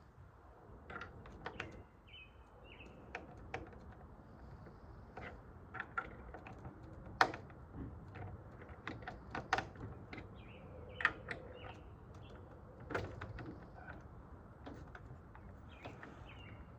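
Irregular clicks and taps of a sliding door lock's parts being handled and fitted, as the locking mechanism is put in; the sharpest click comes about seven seconds in. A bird chirps faintly a few times about three seconds in.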